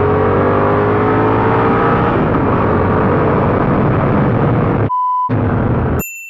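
2015 Yamaha FZ-07's parallel-twin engine pulling under acceleration, rising in pitch over the first two seconds and then holding steady, over a noise haze. About five seconds in, the ride sound is briefly replaced by a short beep. Near the end it cuts off for a ringing electronic ding.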